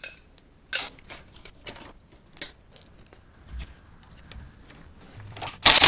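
Small metal hinge hardware (spacer, bolt and nut) clicking and clinking as it is handled and fitted through a door hinge by hand. The clicks are scattered, with a louder clatter near the end.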